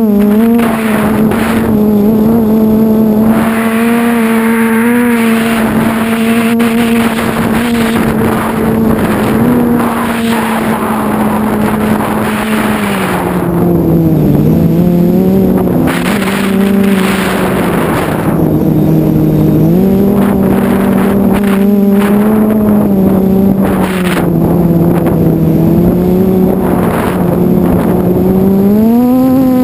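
Brushless motors and propellers of a QAV500 quadcopter whining in flight, the pitch sliding down and up as the throttle changes. Gusts of wind noise come and go over the motor sound.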